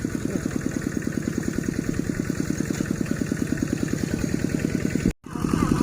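A small engine running steadily at an even idle-like beat, with rapid regular firing pulses. It cuts out for an instant about five seconds in.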